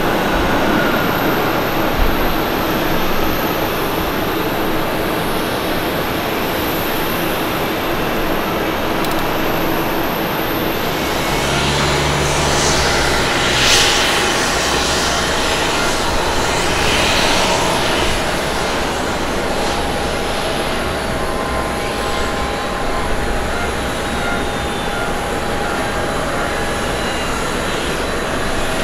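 Jet airliner engines at an airfield. First a Boeing 777-300ER runs along the runway; then, about eleven seconds in, the scene changes to a Boeing 737-800 coming in on final approach to land. A steady rush of engine noise, with a few louder swells in the middle.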